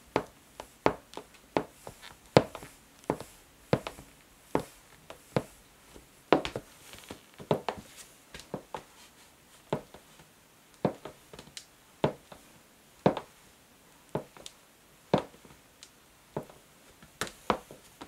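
Black stiletto high-heel pumps clicking on a wooden floor in slow, gentle steps: sharp separate taps at about one to two a second, irregularly spaced, some with a short ring after them.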